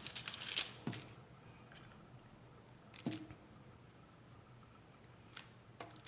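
Metal kitchen tongs clicking as baked cauliflower pieces are picked off a parchment-lined sheet pan and set on a plate: a quick run of clicks at the start, single clicks about a second and three seconds in, and two more near the end.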